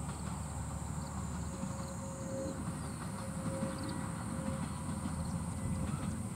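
Two-car TH2100-series diesel railcar train running in the distance, a low steady rumble with a faint drone, growing slightly louder as it approaches.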